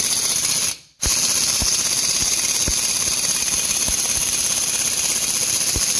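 Snap-on pneumatic impact gun hammering on a press screw, forcing the cylinder off a rust-seized piston in a Subaru 360 two-stroke engine. It runs in one long burst, stops briefly just before a second in, then runs on, with a few heavier knocks as the cylinder shifts.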